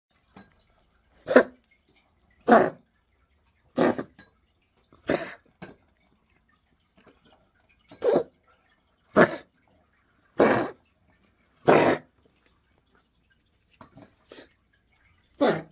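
A domestic cat coughing repeatedly: short, sharp coughs about one every second and a quarter, in two runs of four with a brief pause between, then a few fainter ones and one more near the end. The persistent cough is a sign of bronchial inflammation (bronchitis), which the vet diagnosed instead of feline herpes.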